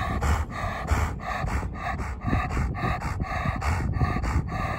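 Elderly Labrador Retriever panting hard and fast, about four breaths a second, winded after running.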